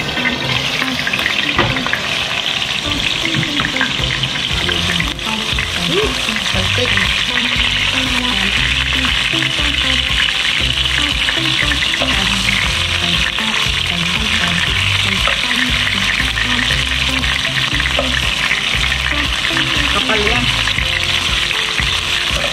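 Slices of beef liver sizzling as they fry in a hot pan: a steady, continuous sizzle.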